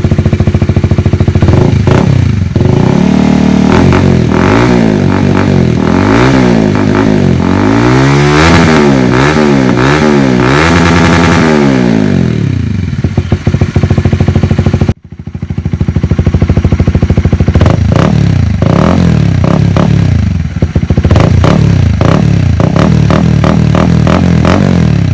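Honda CBR150R single-cylinder engine revved through a replica Akrapovic slip-on exhaust, the pitch rising and falling in repeated throttle blips. It cuts off sharply about fifteen seconds in, then comes back with more short quick revs.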